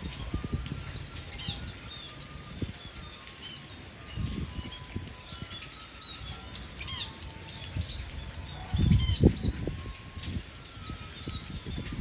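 Spice finches (scaly-breasted munias) giving many short, high chirps, with low fluttering wingbeats about four seconds in and again near nine seconds in, the later ones loudest.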